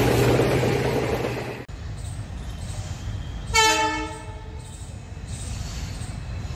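A loud train sound with a steady low hum that cuts off abruptly about a second and a half in, then a short blast of a diesel locomotive's multi-tone air horn, a little over half a second long, around the middle, over quiet outdoor background.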